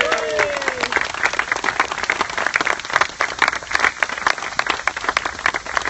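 Audience clapping and applauding, many quick irregular claps, with a voice calling out briefly at the start.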